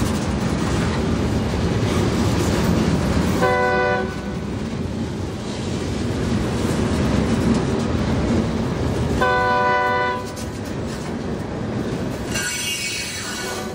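Diesel freight train running past, its engines and rolling wheels making a steady rumble. The locomotive's multi-chime air horn sounds twice, a short blast about three and a half seconds in and a slightly longer one about nine seconds in.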